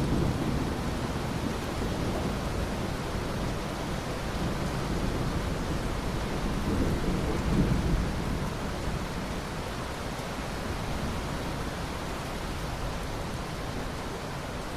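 Steady rain with rolling thunder: a low rumble swells up about halfway through, then fades, leaving an even hiss of rain.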